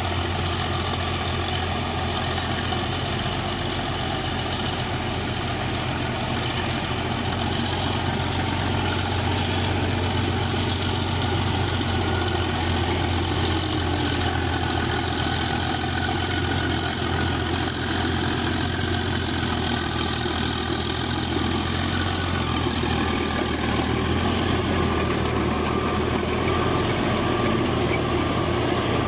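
Bulldozer's diesel engine running steadily with a low drone.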